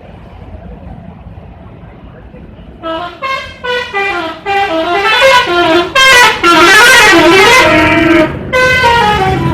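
Telolet bus horn, a multi-tone musical horn, playing its warbling tune. About three seconds in it starts with a few short separate toots, then runs into a longer, loud sequence of notes stepping up and down, with a brief break near the end. Before the horn there is a low rumble.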